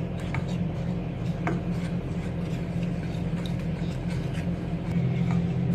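Steady low mechanical hum of a kitchen appliance or fan running, with a few light clinks and taps of utensils or dishes over it.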